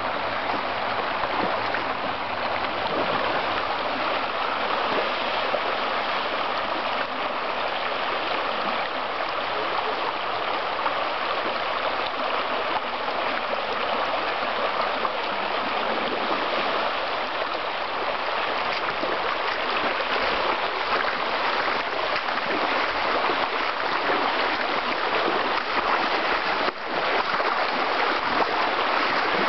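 Shallow, rocky creek running over a riffle: a steady rush of water.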